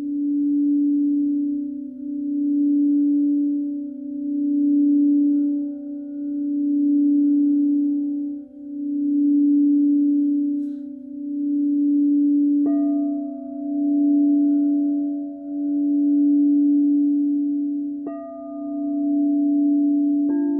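Frosted quartz crystal singing bowls ringing: one low, steady tone swells and fades about every two seconds. A higher tone is struck in about two-thirds of the way through and again near the end, and rings on over the low one.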